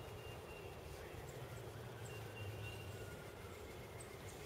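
Quiet woodland ambience: a faint steady hiss and low rumble, with a few thin, high whistling calls now and then.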